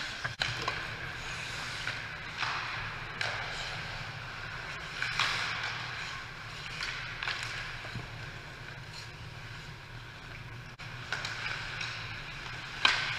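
Ice hockey skate blades scraping and carving on the rink ice in a string of short scrapes, with a sharp crack of a stick or puck, the loudest sound, near the end. A steady low hum runs underneath.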